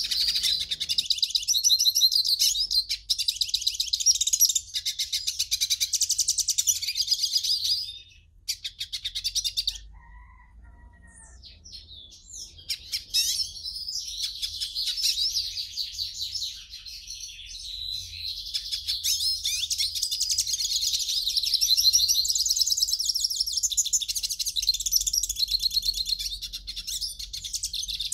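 A pintassilgo finch singing a long, fast, twittering song of high trills and chirps. It breaks off about eight seconds in, with one short burst and a few soft calls, then starts up again about twelve seconds in and sings on without stopping.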